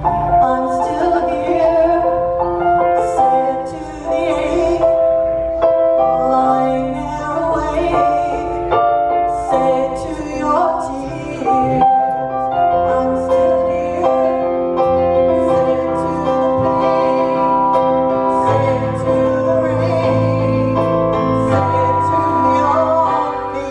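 A woman singing with a live band, keyboard or piano prominent beneath long held notes.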